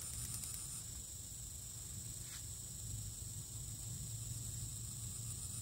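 Steady high-pitched drone of insects, over a low rumble.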